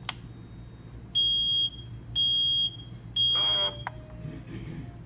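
HST BLE HomeKit smoke detector sounding its alarm: three loud, piercing high-pitched beeps about a second apart, the temporal-three pattern that signals smoke. A click comes just before the beeps.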